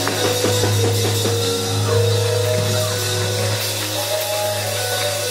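Live church band music: held keyboard chords that change every second or so, over a drum kit with a few quick hits early on.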